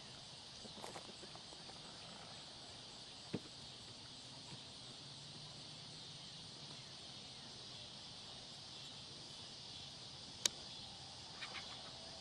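Faint, steady high-pitched outdoor hiss, with a sharp click about ten seconds in and a fainter one about three seconds in.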